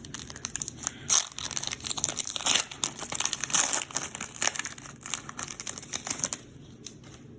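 Pokémon card blister-pack packaging being torn open and crinkled by hand, a dense run of sharp crackles that stops about six and a half seconds in.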